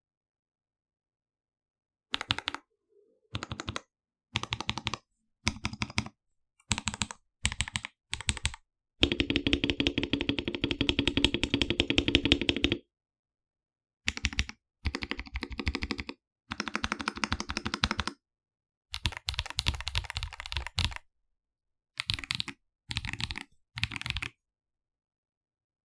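Modifier keys of a KBD67 Lite R2 mechanical keyboard with Akko CS Ocean Blue tactile switches being pressed over and over in short runs of quick strokes, with clean silence between runs. A longer, louder run of fast strokes comes about nine seconds in and lasts around four seconds.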